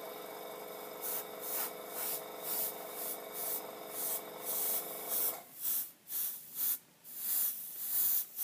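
Airbrush spraying paint in short bursts of hiss, about two a second, over a steady hum that stops about five seconds in.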